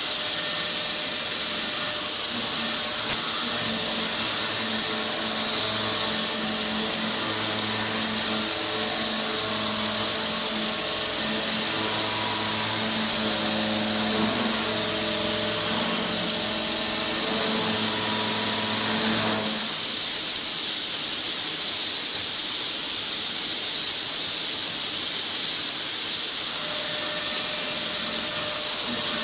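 Parpas THS100X machining centre's TMT50 milling head cutting a pocket in a metal block: a loud steady hiss with a pitched cutting tone over it. The tone stops about 19 seconds in and comes back just before the end.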